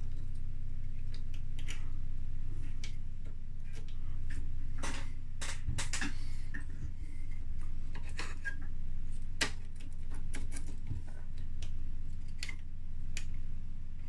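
Scattered light clicks and taps of a small metal screw and hex key against the 3D-printed plastic mount and metal carriage of an Ender 3 printer's hotend as the screw is fitted by hand. A steady low hum sits underneath.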